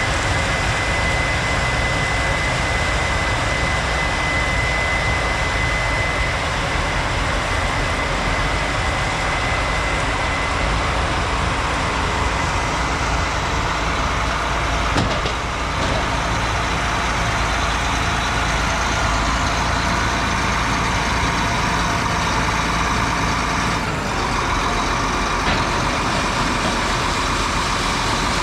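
Combine harvester running steadily while harvesting corn, with a constant high whine in the first few seconds. There are two short knocks, one about halfway through and one a little before the end.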